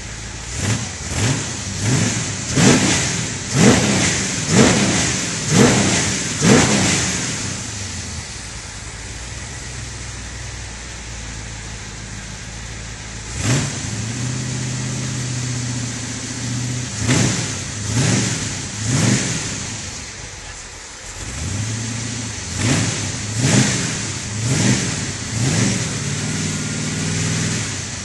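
Monster buggy's engine revved in short blips, about eight in quick succession, then settling back to a steady run; more blips of revving come in the second half.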